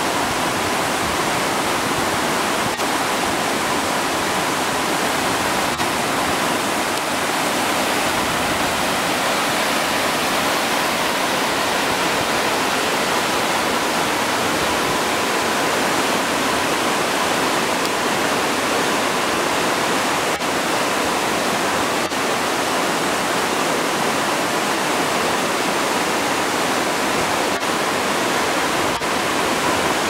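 Upper Whiskeytown Falls, a tiered cascade over rock ledges, rushing steadily: an even, unbroken noise of falling water.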